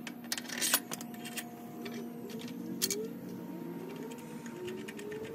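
Scattered metallic clicks and clinks of a mower blade, its washers and mounting bolt being fitted by hand up onto the deck spindle, the sharpest about a second in and near three seconds in, over a faint steady hum.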